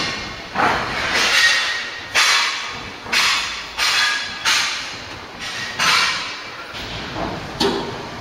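Repeated bangs and clatters of old wooden floorboards being dumped during a house clearance, irregular, about one a second. Each has a short echoing tail.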